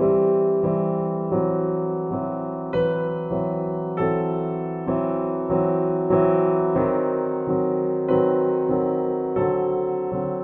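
Background music: slow, gentle piano with sustained chords, a new note or chord struck about every two-thirds of a second and each one fading away.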